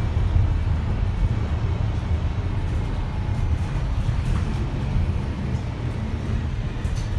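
Interior sound of a Wright StreetLite single-deck bus on the move: its Mercedes-Benz (Daimler) OM934 four-cylinder diesel engine running with a low steady drone, mixed with road and tyre noise and a few faint rattles from the cabin. The level eases slightly toward the end.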